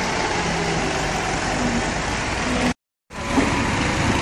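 Massey Ferguson 375 tractor's four-cylinder diesel engine running steadily while its front blade pushes soil. The sound cuts out for a moment about two-thirds of the way through, then carries on.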